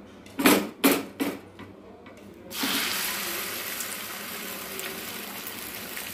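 Three short knocks, then about two and a half seconds in, beaten egg poured into hot oil in a frying pan starts sizzling loudly and keeps up a steady sizzle.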